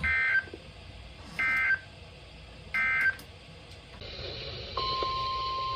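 Emergency Alert System SAME header: three short bursts of warbling digital data tones, about 1.4 s apart. Near the end a steady single-pitch alert tone starts, the signal that a new warning is about to be read.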